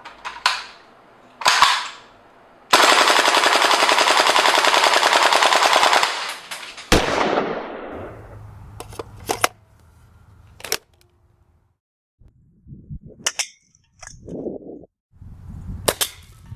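HTS-14 airsoft rifle firing: a couple of single shots, then one long full-auto burst of about three and a half seconds, followed by scattered mechanical clicks and clacks.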